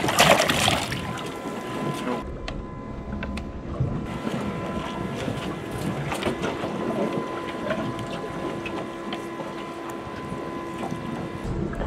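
Water splashing in the boat's live-bait tank as a dip net scoops out a bait fish, loudest in the first second. After it, a steady boat hum with a couple of held tones, and scattered small knocks and rustles of the fish being handled in the net.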